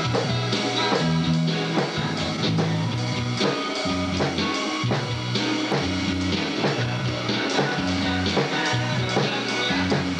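Rock music with electric guitar and a bass line, mixed with drum and cymbal hits from a drum kit that a young child is striking with sticks.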